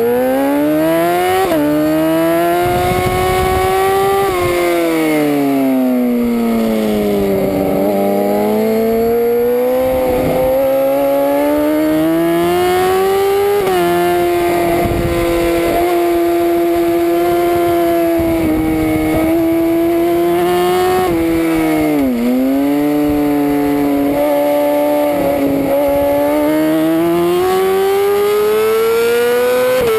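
A racing superbike's engine, heard from its onboard camera, revving hard off the start and pulling up through the gears, its pitch dropping sharply at an upshift about a second and a half in. It falls in pitch as the rider rolls off for a corner, holds a steady note along a straight, dips sharply near the end for another corner, then climbs again as the bike accelerates.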